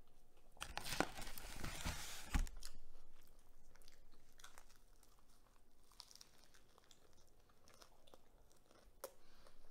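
Close-up eating sounds: rustling and scraping for about two seconds starting about a second in, as the cardboard takeaway boxes and burgers are handled. Then quiet chewing of burger with small wet mouth clicks.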